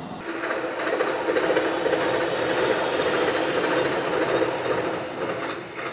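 Train passing by: a steady rolling noise with a hum underneath, building over the first second, holding, then fading away near the end.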